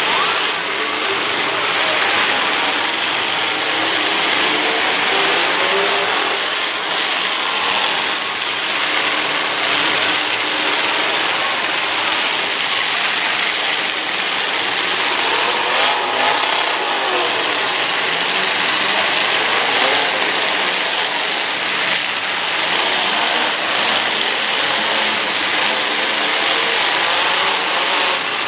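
Several demolition derby cars' engines running and revving hard together, the pitch rising and falling as they accelerate, with a knock of a collision about two-thirds of the way through.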